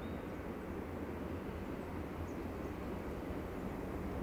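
Freight train rolling away on the rails, a steady low rumble.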